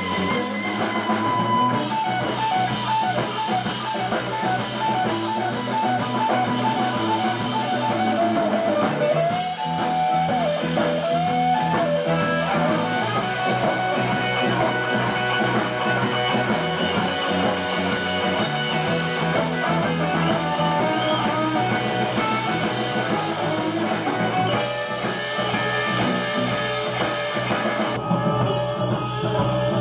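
Electric blues band playing an instrumental passage: lead guitar with bent notes over drums.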